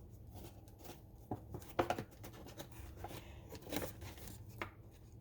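Light rustling and a few short, soft clicks of objects being handled close by.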